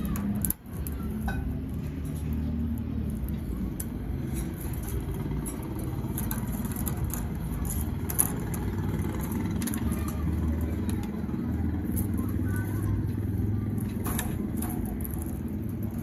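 Steady low rumble of city background noise, with faint scattered ticks and a brief dropout about half a second in.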